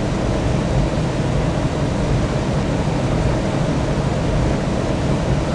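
Steady jet airliner noise: an even, unbroken rumble of engines and rushing air, heaviest in the low range.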